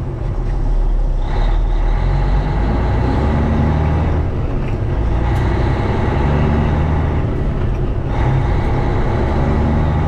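John Deere S680 combine running steadily under load while harvesting corn, a constant low engine and machinery drone.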